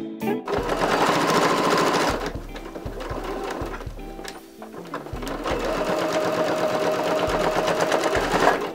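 Electric domestic sewing machine stitching through layered fabric beside a zipper, in two fast spells with lighter running between; a steady motor whine sits under the second spell, and it stops just before the end.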